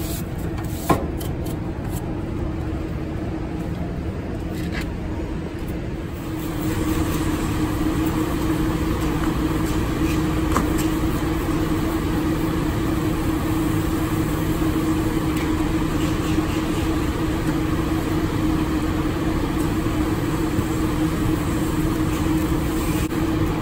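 Steady machine hum with a low droning tone, which gets louder about six and a half seconds in and then holds; a single click about a second in.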